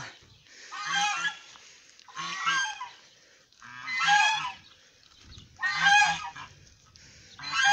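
Domestic geese honking in a series of loud calls about every one and a half to two seconds, displeased at being shooed out of the puddles.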